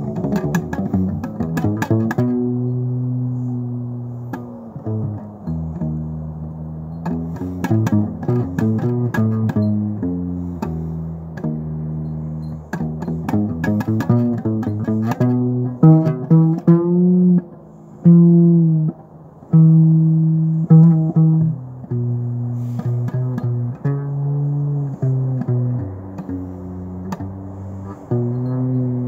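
Electric upright bass played pizzicato with the fingers: a quick run of plucked notes in the first couple of seconds, then longer held notes, some bending in pitch.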